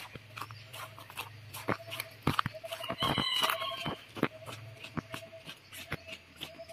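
A chicken calls once, about three seconds in, over footsteps on a stone and gravel path. A short low chirp repeats about once a second.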